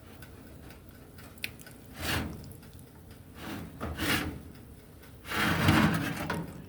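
Kitchen handling noises: a sharp click, then several short scraping and rubbing sounds. The longest and loudest scrape comes about five seconds in.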